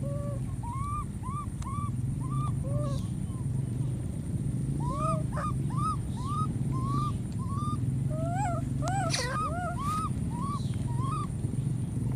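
Infant macaque crying: short, arched, squeaky calls, two or three a second, in two runs with a pause of about two seconds between them. A steady low background noise runs underneath.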